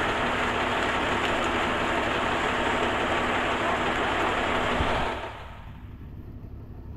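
Rushing, gushing water as a load of hatchery trout is released into the lake, over a steady engine hum. The rush drops away about five seconds in, leaving the lower hum.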